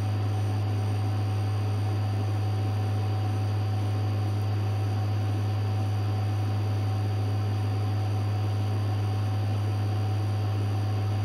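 Metcal HCT2-120 hot air rework pencil blowing heated air at a low flow of about 3.5 litres per minute onto solder paste as it reflows: a steady airy hiss over a strong, constant low hum.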